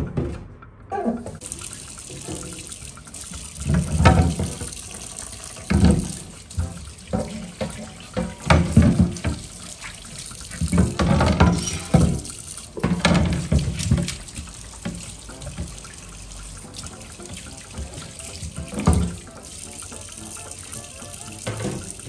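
Kitchen tap running into a stainless steel sink, starting about a second in, with water splashing off a glass refrigerator shelf being rinsed under it. Irregular knocks and clatters come as the plastic-framed shelves are handled against the sink.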